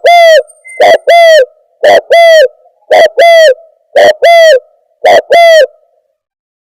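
Spotted dove (tekukur) coos played as a bird-lure recording, very loud. A short note and a longer arched coo repeat about once a second, then stop near the end.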